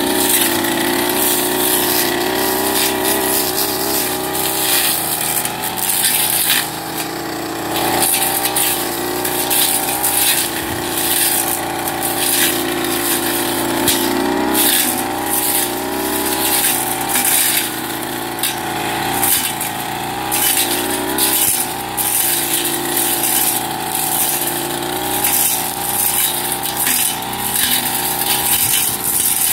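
Backpack brush cutter's two-stroke engine running at high revs, its pitch wavering up and down as the blade cuts through weeds and brush, with frequent sharp ticks and crackles from the cutting. The operator takes the blade to be dull.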